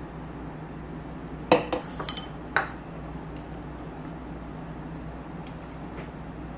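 Chopsticks clinking against a ceramic bowl and dishes, a quick cluster of sharp clicks about one and a half to two and a half seconds in, the first the loudest. Then only faint small ticks as the noodles are lifted and stirred, over a steady low hum.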